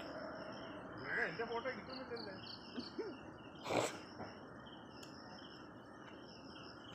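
Insects chirping steadily in repeated pulses at two high pitches, with a short, sharp burst of noise about four seconds in.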